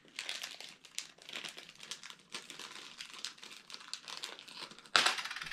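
Small clear plastic bag crinkling and rustling as it is handled and opened by hand, louder about five seconds in.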